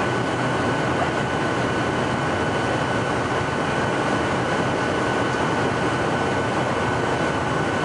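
Jet airliner cabin noise on final approach, heard from a window seat: the steady rush of engines and airflow, with a thin steady whine running through it.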